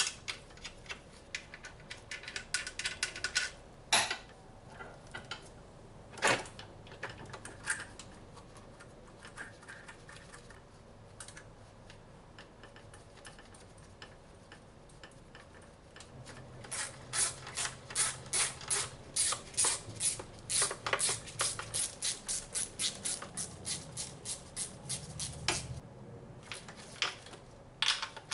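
Hand ratchet clicking in quick runs as fasteners are worked, with a couple of sharper metal knocks.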